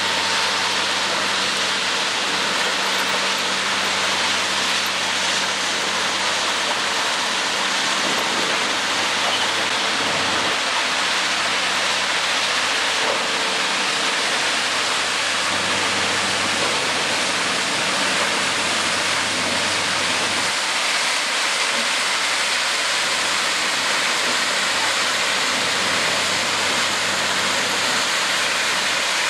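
Loram shoulder ballast cleaner working along the track shoulder: a steady, dense rushing noise of ballast stones being dug out and thrown by its digging wheels, along with the machinery, and a faint steady hum underneath.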